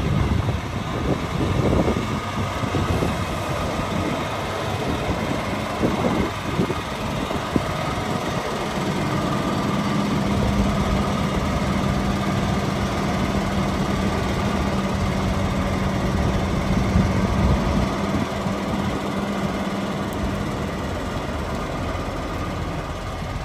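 Diesel engine of a bonneted prime mover pulling a tanker road train at low speed, approaching and rolling close past, with tyre and trailer rumble. A steady low engine drone comes in about a third of the way through and fades shortly before the end.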